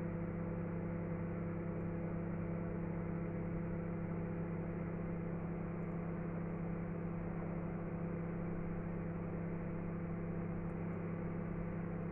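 Pigeon microwave oven running on medium-low power with its turntable going, a steady hum and whir that does not change.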